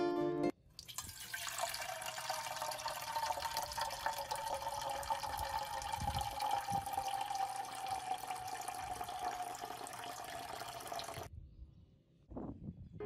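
Green pandan-leaf water trickling steadily from a tiny cup onto raw rice in a small bowl. Its pouring tone falls slightly, and it cuts off suddenly near the end.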